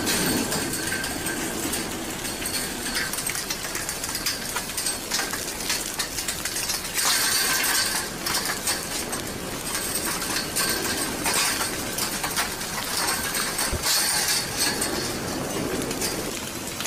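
Blocky ʻaʻā lava flow front advancing: chunks of cooling crust crack, break off and tumble, a continuous crackle of glassy clinks and small knocks that swells about seven seconds in and again near fourteen seconds.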